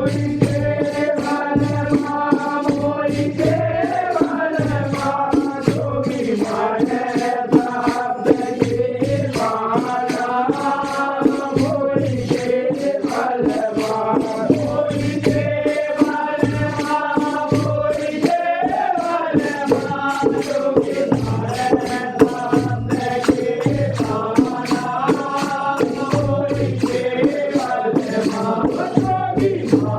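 Devotional Hindu bhajan music: a held, gliding melodic line in phrases of a second or two over a steady, fast percussion beat and a repeating low pulse.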